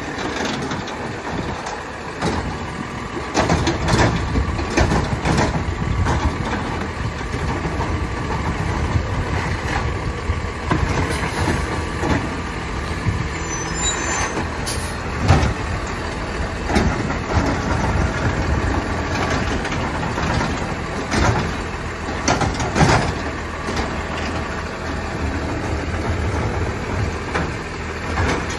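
McNeilus ZR automated side-loader garbage truck on a Battle LET2 chassis, working its route: the engine runs steadily under a thin steady whine, with sudden clanks and air hisses now and then.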